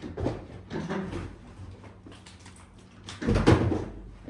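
Two baby monkeys scuffling and tumbling on a tiled floor: uneven bumps and rustles, with a louder scuffle about three seconds in.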